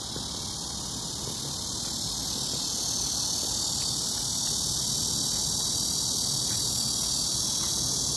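Steady high-pitched insect chorus, an even shrill hiss without breaks, over a low rumble.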